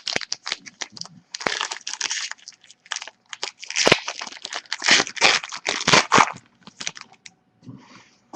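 Foil trading-card pack wrapper being torn open and crinkled, in bursts of crackling over several seconds.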